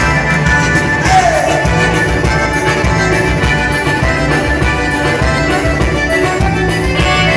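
Live dance-band music with a steady beat and a short falling note about a second in.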